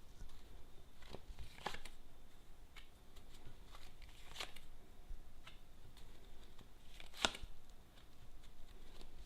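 Tarot cards being handled and laid out: a few irregular soft snaps and flicks of card, the sharpest about seven seconds in.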